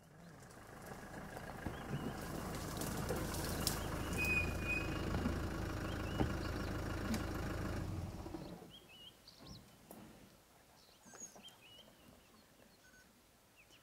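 A vehicle engine running with a steady low rumble, which stops about eight seconds in. Birds then chirp faintly.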